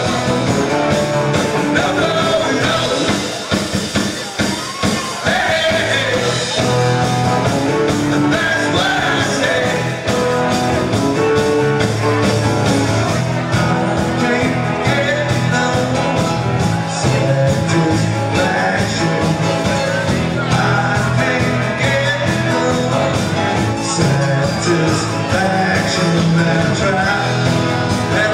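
Live rock-and-roll band playing: drums, electric guitar and a Korg keyboard, with a man singing lead vocals.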